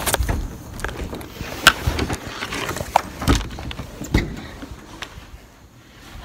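Handling noise from a phone as a person clambers in through a house window: scattered knocks and thumps with rustling and low rumbling, growing quieter near the end.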